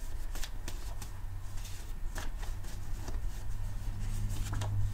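A deck of cards being shuffled and handled by hand: a run of soft, irregular flicks and rustles, over a steady low hum.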